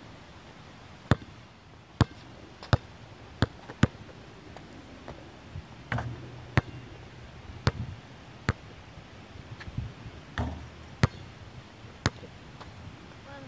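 Basketball bouncing on a hard court: about ten sharp single slaps at an uneven pace, quicker in the first few seconds. Around the middle come a couple of duller, longer low thuds.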